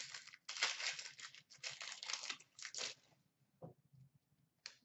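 A 2015-16 O-Pee-Chee Platinum hockey card pack wrapper being torn open and crinkled, a run of crackling and rustling for about three seconds, followed by a couple of faint clicks.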